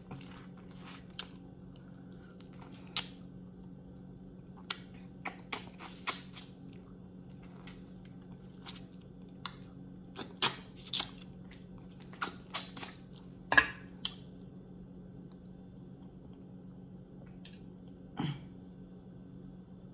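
Close-up chewing and mouth smacking from eating oxtail meat off the bone, with irregular wet clicks and smacks. The smacks are busiest through the middle and thin out near the end, over a steady low hum.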